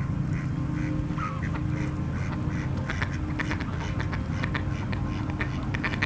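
Mallards quacking in a rapid run of short quacks that grows busier about halfway through, over a steady low hum.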